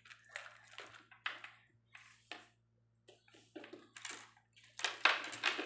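Irregular clicks, taps and rustles of rubber resistance bands being handled, louder about five seconds in, over a steady low hum.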